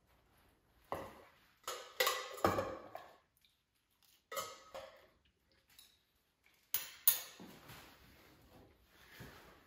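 Metal spoon scraping and clinking against stainless-steel bowls in a run of short clatters, loudest about two seconds in, with two sharp knocks about seven seconds in.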